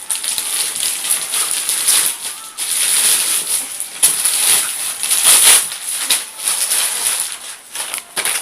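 Crinkling and rustling of gift wrapping being handled and torn open, in irregular surges.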